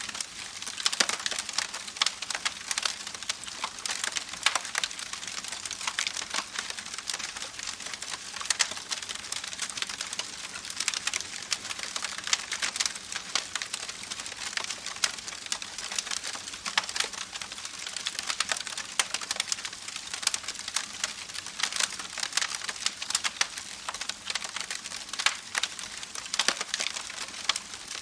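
Wood campfire crackling, with frequent irregular pops and snaps, over the steady hiss of a babbling creek.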